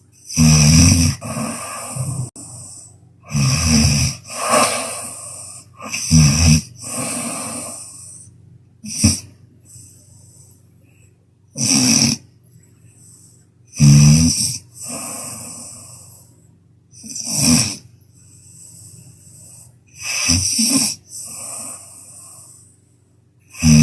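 A sleeping person snoring loudly: a harsh, rattling snore roughly every three seconds, each followed by a quieter breathy exhale.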